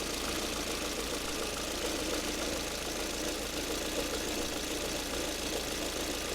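Lada Kalina's petrol engine idling steadily while still cold.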